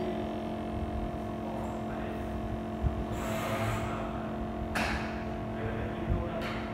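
A steady hum made of several fixed tones over a low rumble. About three seconds in there is a short rustle, and just under five seconds in a sharp click.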